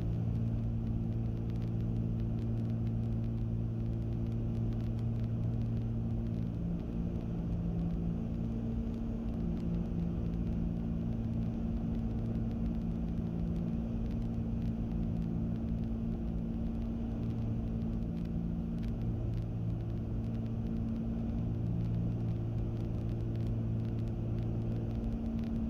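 Cessna 310Q's two six-cylinder piston engines and propellers droning steadily, heard inside the cockpit. The tone slowly swells and fades over several seconds.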